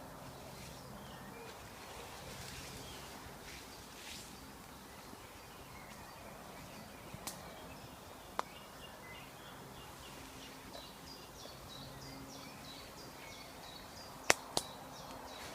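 Woodland birdsong, with one bird repeating a quick high chirp over and over in the second half. A few sharp snaps of twigs breaking underfoot, the loudest two close together near the end.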